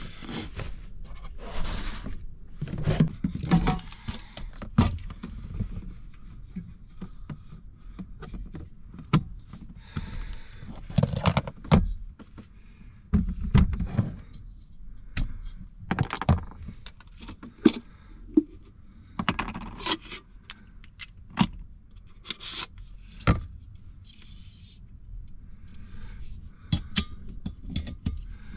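Small items being handled and set down on a plastic storage tote: scattered clicks, knocks and scrapes, with rustling in between, as coffee makings are got out and opened.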